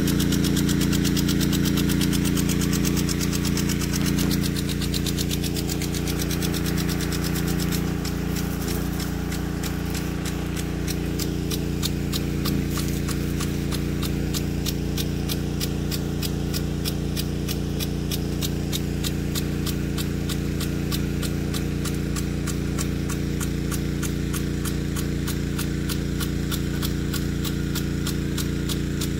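The drive pump runs steadily with a low hum while a Weathertec 10-67 impact sprinkler throws water, its arm making a fast, even ticking over the hiss of the spray.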